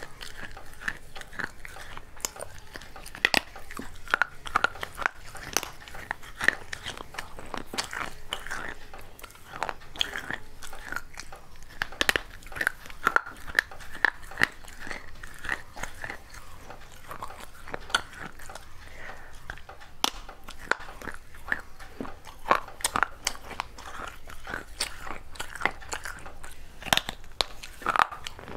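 Pieces of a small earthenware clay pot being bitten and chewed: irregular sharp crunches and cracks, one after another.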